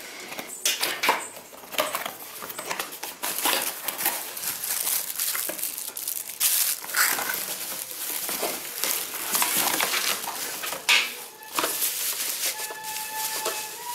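Unboxing: a cardboard box is handled while plastic bags and bubble wrap around mixer-grinder jars rustle and crinkle in a continuous stream of crackling, with short sharp knocks of plastic parts.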